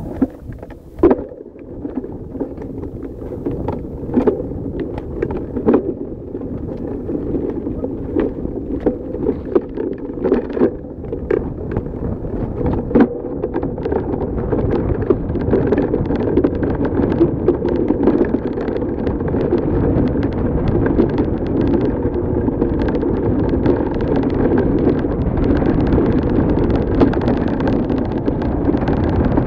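Hardtail mountain bike riding fast down a rough dirt trail: sharp knocks and rattles from the bike and its handlebar-mounted camera over bumps, mostly in the first half, under a steady rush of tyre and wind noise that grows louder as the speed builds.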